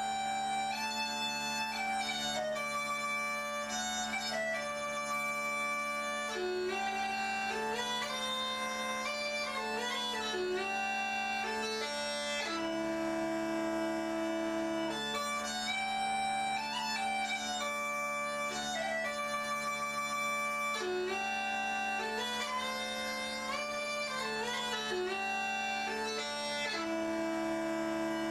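Bagpipe music: a slow melody of held notes with quick grace-note ornaments, over steady drones.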